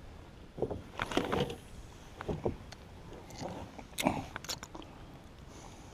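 Irregular light knocks, clicks and brief scrapes of fishing gear and hands being handled while fishing, five or six small bumps spread over a few seconds.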